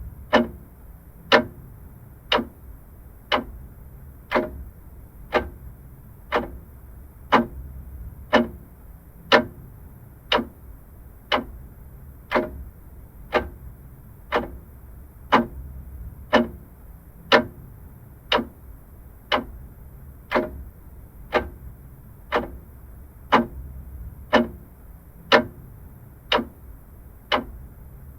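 Vintage mechanical clock ticking steadily, about one tick a second, over a faint low hum.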